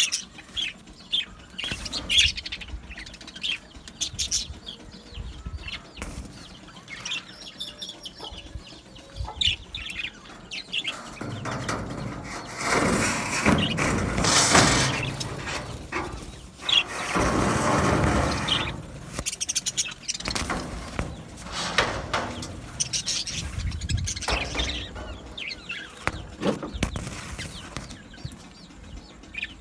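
A flock of budgerigars chirping and chattering in many short, high calls. Twice, at about 11 to 15 seconds and 16 to 19 seconds, a louder rustling noise rises over the calls.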